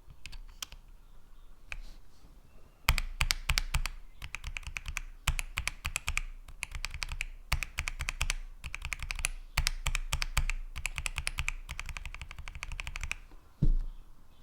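Typing on a mechanical keyboard fitted with Kailh Box linear switches: a few single keystrokes, then about ten seconds of fast, continuous typing with brief pauses. A dull thump near the end.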